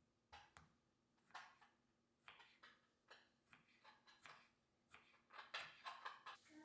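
Faint, irregular light taps, clicks and short scraping rustles, a dozen or so spread over a few seconds, as of small objects being handled.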